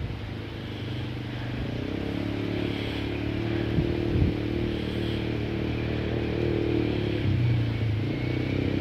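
ATV engine running steadily and growing slowly louder as the quad approaches across the sand, with two brief knocks about four seconds in.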